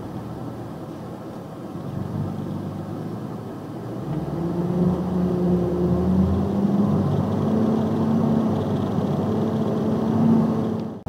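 Box truck engine and road noise heard from inside the cab. The engine pulls harder from about four seconds in, its pitch climbing slowly as the truck accelerates.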